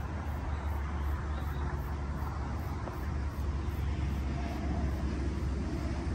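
Steady low rumble and hiss of road traffic in the open air.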